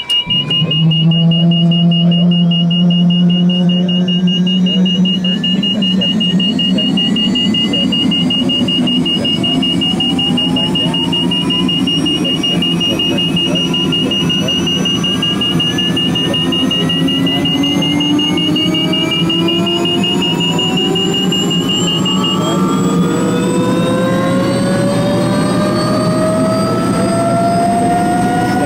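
Bell 206 JetRanger III's Allison 250 turbine lighting off and spooling up during engine start, heard from inside the cockpit: several whines climb steadily in pitch as the engine and rotor gain speed. A rapidly pulsing high cockpit warning tone sounds alongside and cuts off about three quarters of the way through.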